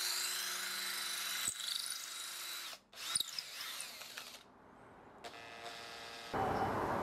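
An electric drill spinning a wooden blank through a hand-plane-blade dowel jig: a steady motor whine with the rasp of the blade shaving the wood into a dowel. The drill drops out about three seconds in, runs again briefly with its pitch changing, and after a short lull a louder, rougher rasp starts near the end.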